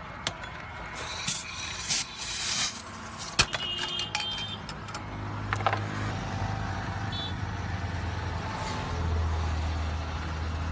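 Short hisses of gas and sharp clicks from a roadside soda stall's carbonating machine. Then a steady low vehicle-engine hum, louder near the end, while soda fizzes as it is poured into a cup.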